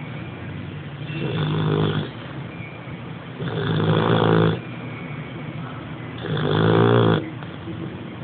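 English bulldog snoring in her sleep: three snores, each about a second long, coming roughly every two and a half seconds.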